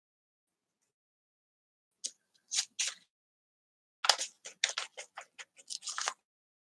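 Hands handling craft supplies at a work table: a few short scuffs, then a quick run of about ten scratchy strokes over two seconds.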